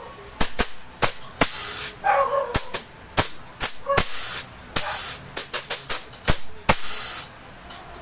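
R-134a refrigerant gas hissing out in about half a dozen short bursts while air is purged from a refrigerator's sealed system through the charging hose and copper tube. Sharp clicks fall between the bursts.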